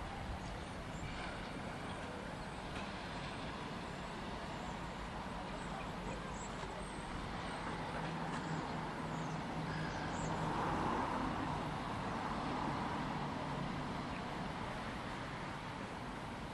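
A distant engine humming steadily under a wash of wind and surf noise, growing a little louder about ten seconds in.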